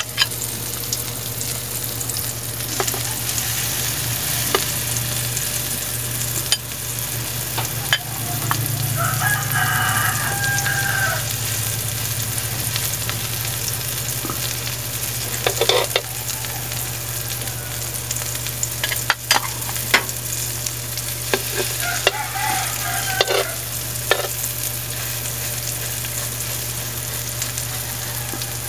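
Mushroom fritter batter frying in shallow oil in a metal wok: a steady sizzle, with a metal spoon clicking and scraping against the wok. A rooster crows twice in the background.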